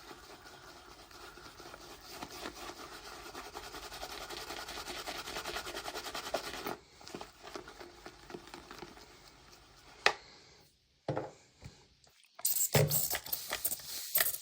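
Synthetic shaving brush scrubbing and whisking soap lather against the ridges of a 3D-printed lather bowl: a rapid, even rubbing that grows louder over the first seven seconds, then softens. A sharp click about ten seconds in and a short pause come before loud, brisk brushing sounds near the end.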